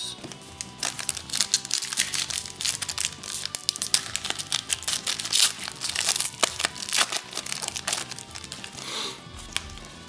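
Foil wrapper of a trading-card pack crinkling and tearing as it is ripped open by hand: a dense run of crackles that stops near the end.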